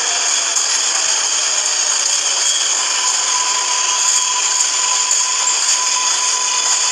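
Train running: a steady rushing, hissing noise with faint ticks, and a thin steady whine joining about three seconds in.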